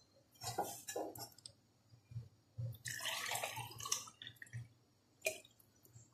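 Spatula stirring a watery okra and meat curry in an aluminium pot: wet sloshing and scraping in short bursts, with a longer stretch of stirring in the middle and a sharp knock near the end.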